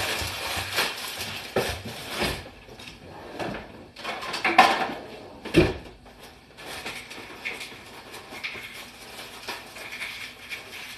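Kitchen drawer rummaged through, dishes and utensils clattering, with two sharp knocks a little under halfway through, then lighter clinks and handling noises at the counter.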